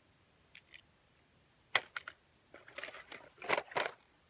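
Small plastic toy airplane put into a plastic basin, clicking and clattering against the plastic toy trucks already in it: a sharp click a little under two seconds in, then a run of rattling clicks.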